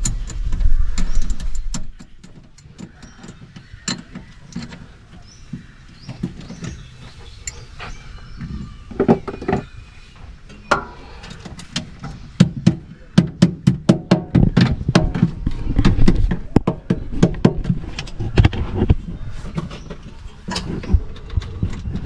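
Irregular clicks, clanks and knocks of hands and tools working on metal parts in a mini skid steer's engine bay, around the battery and its cable beneath the hydraulic pump. The knocking grows much busier about halfway through, with some low rumbling.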